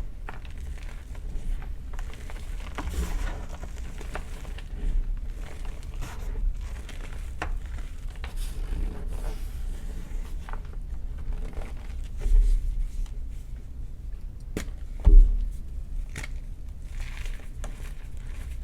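Blocks of gym chalk being crushed and crumbled by hand: irregular dry crunches and crackles, with two louder thumps in the last third.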